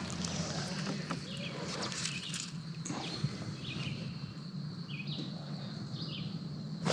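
Outdoor lakeside ambience: about five short, high bird chirps roughly a second apart over a faint steady low hum.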